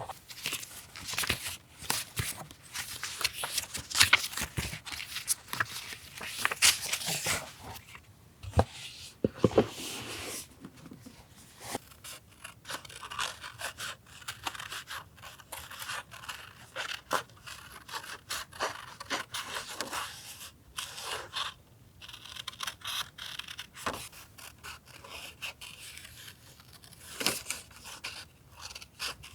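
Paper being handled for a collage journal spread: a dense, irregular run of short crisp rustles, snips and scrapes, as of paper being cut, torn and rubbed down.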